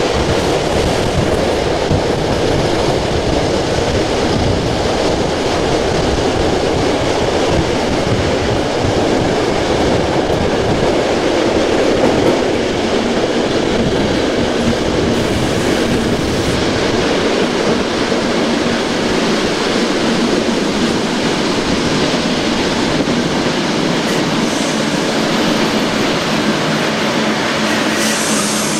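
Modernised SNCB AM80 electric multiple unit running on the line: steady running noise of its traction motors and wheels on the rails. The deep rumble eases off from a little past halfway as the train slows for a station stop.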